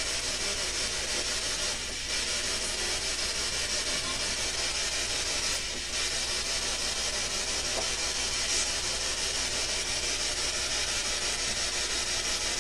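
Steady hiss with a low electrical hum underneath: the high-gain noise floor of a recording made in a silent room, with no distinct knock or voice standing out.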